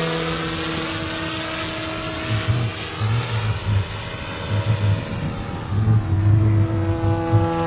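Engine of a radio-controlled model biplane running at a steady pitch in flight. It fades a second or so in as the plane flies off and grows strong again near the end. Wind gusts buffet the microphone.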